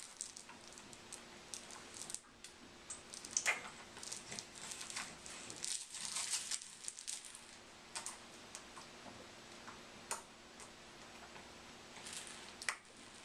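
Plush elephant toy hanging from a baby play-gym arch, rustling and clicking irregularly as a baby grabs and tugs at it, with a few sharper clicks, the loudest about three and a half seconds in and near the end.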